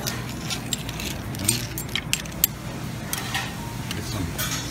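Cockle clam shells clinking against a serving spoon and a metal steam tray as they are scooped onto a plate: a run of irregular sharp clinks, the sharpest about two and a half seconds in.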